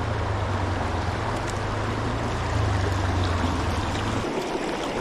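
River water rushing over rocks, with a steady low rumble that cuts off suddenly about four seconds in.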